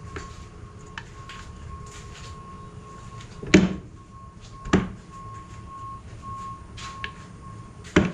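Three sharp knocks, two about a second apart and a third a few seconds later, from handling hard parts and tools during work on an engine's valve cover. A faint steady high tone runs underneath.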